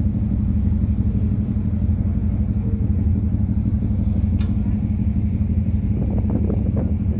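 Ferry's engines running with a steady low rumble, heard from the open deck. A single short click comes about four and a half seconds in, and faint voices near the end.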